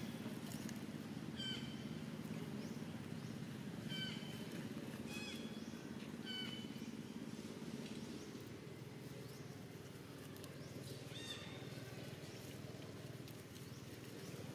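Short, high squeaking calls of macaques: four in the first seven seconds and another about eleven seconds in. A steady low hum runs underneath.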